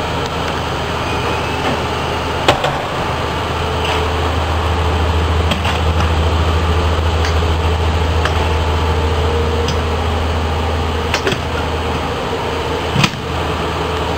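Steady low hum of an idling ambulance and its patient-compartment air conditioning, with a couple of sharp knocks, one about two seconds in and one near the end.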